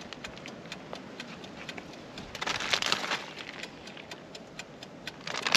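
Plastic bag of grated cheese crinkling, with small scattered clicks as the cheese is sprinkled by hand onto a pizza base. The rustling is louder for about a second, starting about two and a half seconds in.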